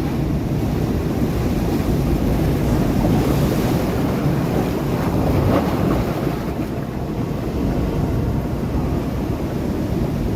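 Sea waves breaking against rocks: a continuous rushing wash of surf that swells louder about three seconds in and again about five and a half seconds in.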